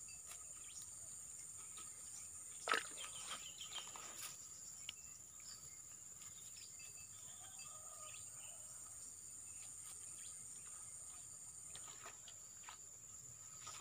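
Steady high-pitched trilling of insects, with faint bird chirps. A sharp knock comes about three seconds in, and a few smaller clicks follow.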